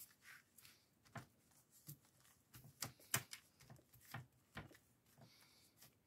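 Near silence, broken by faint, scattered soft taps and paper rustles as hands press and smooth down a lace-and-paper notebook cover.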